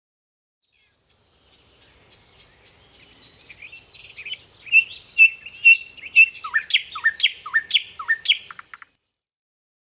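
Birds chirping and singing in quick repeated notes. The song fades in, grows louder and busier, then stops suddenly near the end.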